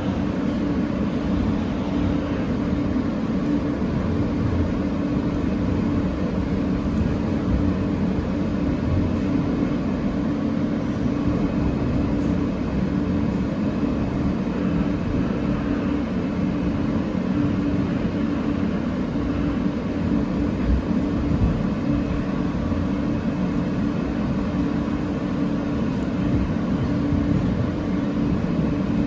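Inside a moving R160A New York City Subway car: a steady rumble of steel wheels on the rails, with a constant hum.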